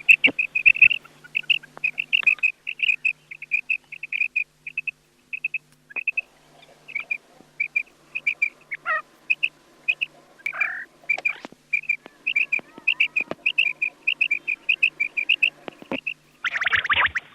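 Quail calls played from a recording: short, high chirps repeated rapidly in quick clusters of two or three, with a faint low hum pulsing along with them.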